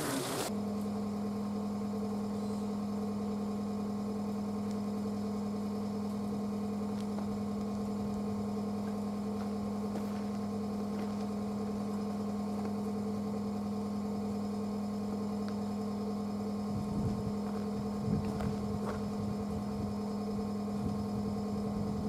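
A steady hum of a few fixed pitches, starting abruptly and holding unchanged; soft low rumbles join it about two-thirds of the way in.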